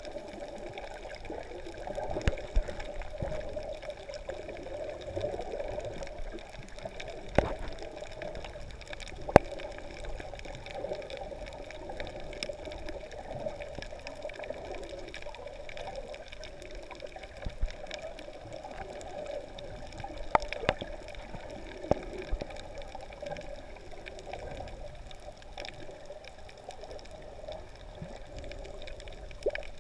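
Underwater ambience picked up by a GoPro inside its waterproof housing: a steady muffled wash of water moving over a rocky reef. Several sharp clicks stand out here and there, the loudest about nine seconds in.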